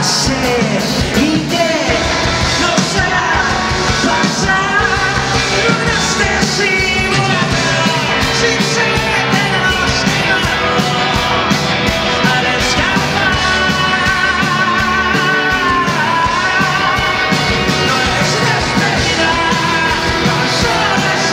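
A live rock band playing loudly with electric guitars, bass and drums under a male lead vocal, heard through the PA from the crowd.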